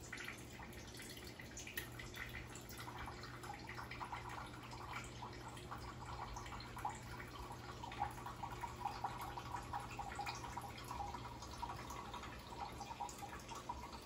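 Soy sauce pouring slowly from its bottle into a glass measuring cup: a faint run of small, irregular drops.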